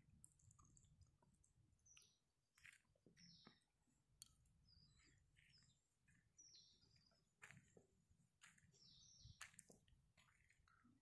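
Near silence with faint, repeated short high-pitched bird chirps and a few soft clicks.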